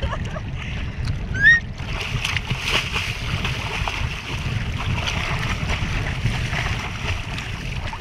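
Water splashing and lapping around a paddle, with wind rumbling steadily on the microphone. A short rising whistle-like tone about one and a half seconds in.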